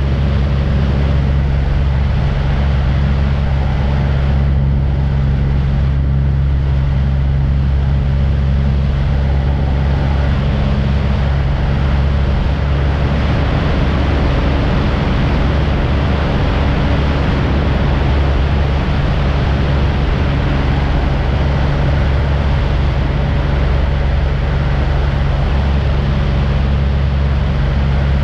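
Aircraft engine drone in steady flight: a loud, even hum with a low pitched tone, whose tone shifts slightly about thirteen seconds in.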